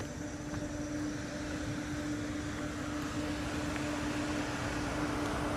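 Peugeot 308 moving slowly over a rough, steep dirt track: a steady hum holding one pitch over uneven rumbling road noise, slowly getting a little louder.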